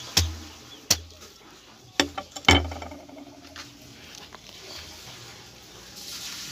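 Four sharp chops of a large knife into a ripe jackfruit, each with a dull thud, in the first two and a half seconds, followed by quieter sounds of the fruit being pulled apart by hand.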